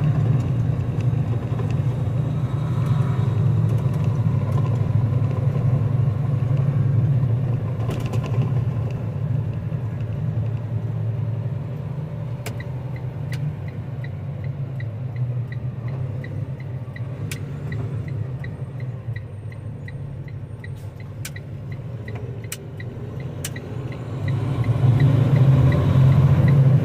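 Steady low engine and road rumble inside a moving truck cab. It eases off as the truck slows, then builds again near the end as it pulls away. Through the second half a faint, evenly spaced ticking runs under the rumble, with a few scattered clicks.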